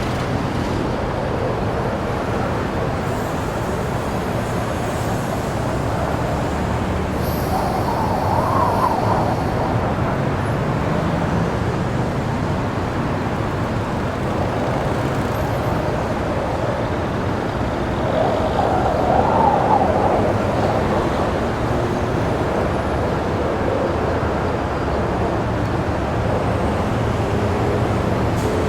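FPV drone's motors and propellers running, with steady rushing air noise and a rise and fall in pitch twice as the throttle changes, about eight seconds in and again near twenty seconds.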